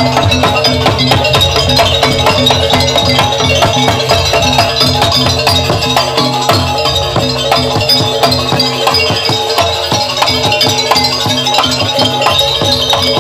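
Live Javanese jaranan barong music from a gamelan-style ensemble: drums and metal gongs and keyed percussion playing a loud, dense, steady rhythm.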